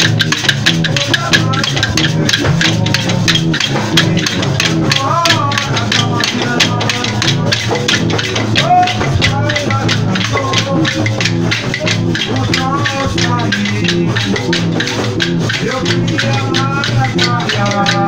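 Bumba-meu-boi percussion in the matraca style, played without singing: dense, steady clacking of matracas and shaking of maracá rattles over low drumming.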